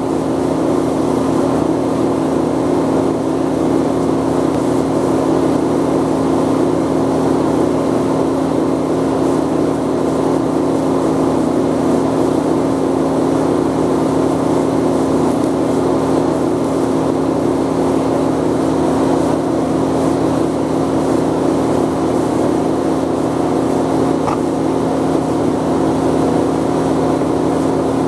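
TIG welder and arc buzzing steadily during a silicon bronze braze-weld from stainless steel onto brass, at about 80 to 100 amps.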